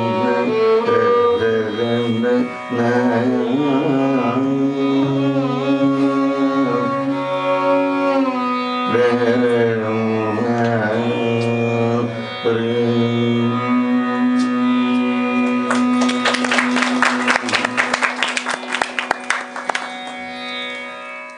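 Carnatic music in raga Choornikavinodini: a male voice and violin trace bending melodic phrases over a steady drone. About three-quarters of the way in, the mridangam plays a fast run of strokes. The piece then fades, cutting off sharply at the very end.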